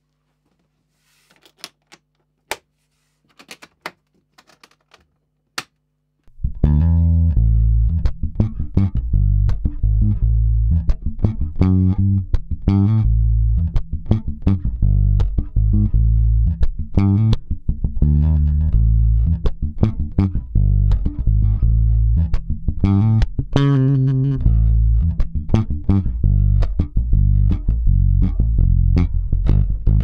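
A few faint clicks, then about six seconds in a handmade five-string electric bass starts playing: a loud, busy bass line of sharply attacked notes.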